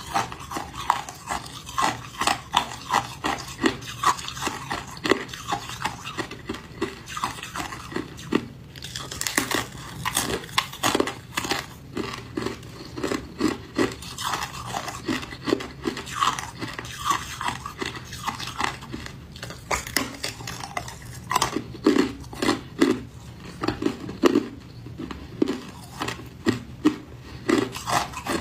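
Hard ice being chewed and crunched in the mouth, with crisp crunches coming a few times a second.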